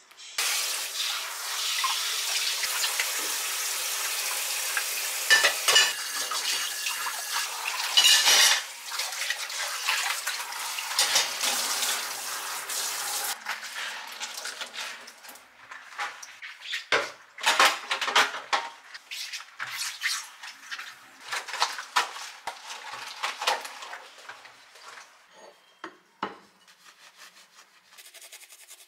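Kitchen tap water running into a stainless steel sink while dishes and cutlery are washed by hand, clattering against each other. About thirteen seconds in the steady rush of water eases, and dishes clink and knock on and off as they are handled.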